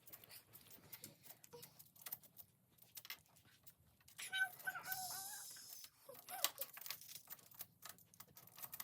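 Small plastic magnetic building cubes clicking and tapping as they are handled and snapped together. About four seconds in, a brief high, wavering voice-like sound rises over them.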